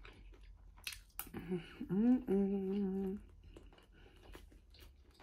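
A woman chewing a mouthful of fried rice with her mouth closed, humming an appreciative 'mmm' in the middle that rises in pitch and then holds steady for about a second. A few faint clicks of chewing or fork come before and after.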